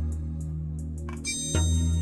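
Background music of sustained chords with a strong bass note; a new chord comes in sharply about one and a half seconds in.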